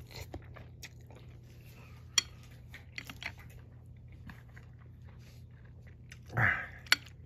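Close-up chewing and mouth sounds of someone eating a bowl of instant noodles, with a few sharp clicks scattered through. About six and a half seconds in there is one short voiced sound with a rising pitch.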